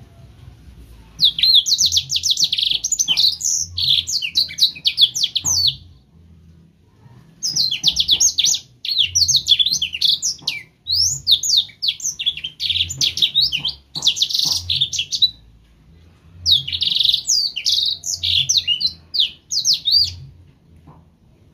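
Young black-throated canary (blackthroat) singing a fast twittering song of rapid high notes, in three bursts of a few seconds each with short pauses between.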